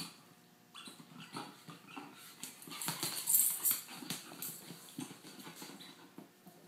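An Akita chewing and gnawing a rolled-up paper tube: irregular crinkling, tearing and scraping of paper with clicks of teeth, busiest and loudest a little past the middle.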